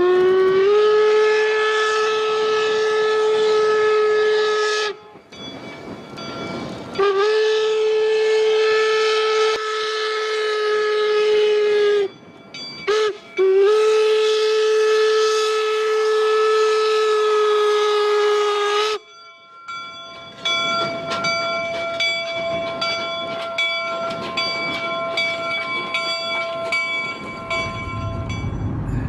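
Steam whistle of the Union Pacific No. 119 replica 4-4-0 locomotive sounding the grade-crossing signal: long, long, short, long. After that its bell rings at an even pace, about two or three strokes a second, for roughly eight seconds.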